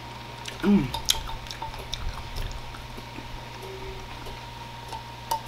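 Wet chewing and mouth clicks of someone eating a burger close to the microphone, with a short voiced hum about three quarters of a second in, over a steady low electrical hum.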